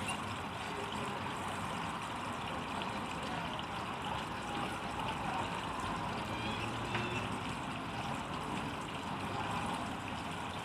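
ShopSmith bandsaw running steadily, its half-inch blade cutting into the end of a small log section.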